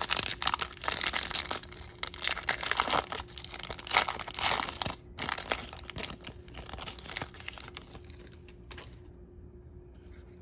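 Wrapper of a 2023 Topps Series 2 jumbo baseball card pack being torn open and crinkled by hand. The crackling is loud for about five seconds, then thins to a few soft rustles.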